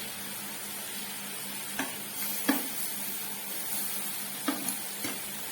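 Beef bulgogi sizzling on a grill, a steady hiss broken by a few short sharp clicks.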